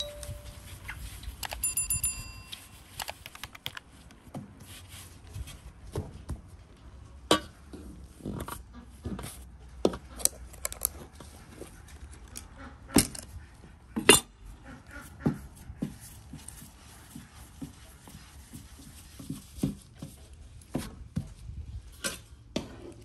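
Irregular sharp clicks and light knocks of dough and kitchenware being handled on a wooden board, the loudest about a third and two thirds of the way through. About two seconds in, a short steady high tone sounds for about a second.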